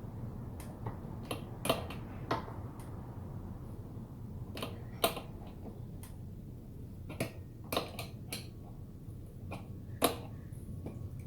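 Hand tools clicking and clinking against the e-bike's crank and chainring as the chainring is taken off, about eight sharp separate clicks at uneven intervals over a low steady hum.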